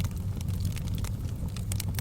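Wood fire crackling in a fireplace: frequent irregular sharp snaps and pops over a steady low rumble of the burning flames.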